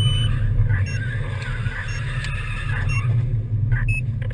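A motor vehicle driving, with a steady low rumble of engine and road noise.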